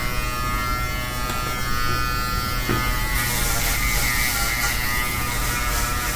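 Electric shaver buzzing steadily as it is run over a shaved scalp, taking the head down to the skin. From about three seconds in, a hissier sound comes and goes with each stroke of the head across the scalp.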